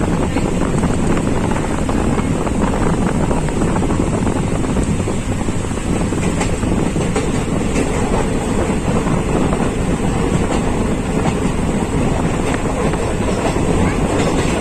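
Steady rumble and rush of a moving train, with wind buffeting the microphone.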